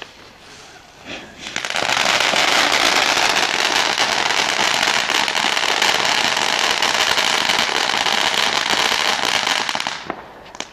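Ground firework fountain lighting and spraying sparks: a loud, steady hissing with fine crackling that starts about a second and a half in and cuts out shortly before the end.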